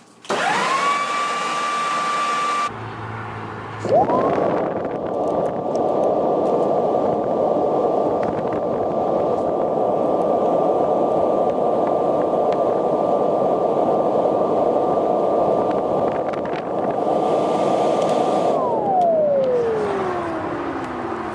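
Electric leaf blower blowing air through a lint-clogged dryer vent line. Its motor spins up briefly at the start, then again about four seconds in to a steady high whine over rushing air, and winds down with a falling pitch near the end.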